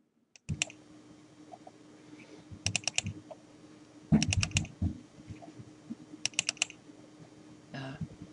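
Clicking at a computer: three quick runs of four or five clicks each, with a few single clicks between, over a low steady hum.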